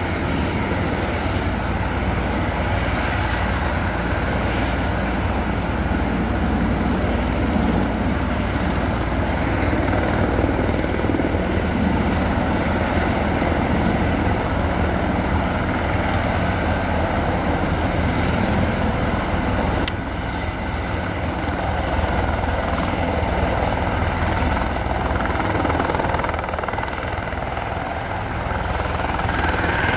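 Airbus EC130B4 helicopter running on the ground with its main rotor turning, a steady turbine and rotor sound from its Arriel 2B1 turboshaft and Fenestron tail fan. Near the end it lifts into a hover and the sound grows louder.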